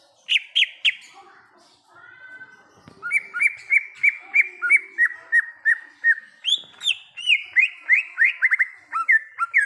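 Cucak ijo (green leafbird) singing loud, clear whistles. Three sharp notes open the song, then after a short pause comes a fast, regular run of ringing whistled notes, about three a second.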